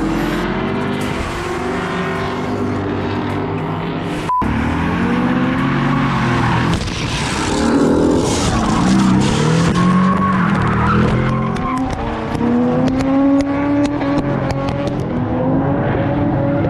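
Drift cars passing close by in turn, their engines revving up and down over screeching tyres. The sound cuts out for a moment about four seconds in.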